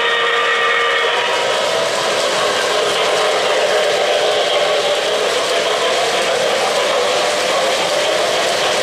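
Model steam locomotive whistle from the K-Line New York Central Hudson's Lionel RailSounds, cutting off about a second in. It is followed by the steady rolling rumble of the O-gauge locomotive and its passenger cars running past on three-rail track.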